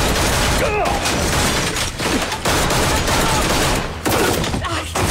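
Heavy, sustained gunfire from several guns in a firefight, shots overlapping almost continuously with short breaks about two and four seconds in.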